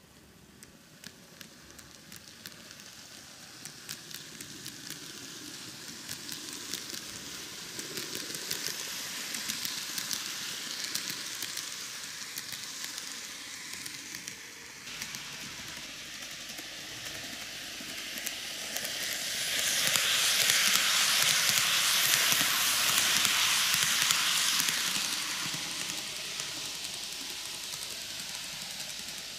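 N-gauge model train (TOMIX Kintetsu 80000 series Hinotori, six cars) running on track: a steady hiss of motor and wheels with fast light clicks as the wheels cross rail joints, growing louder as it approaches. After a change about halfway, the rolling hiss rises to its loudest about two-thirds of the way through as the train passes close, then eases off.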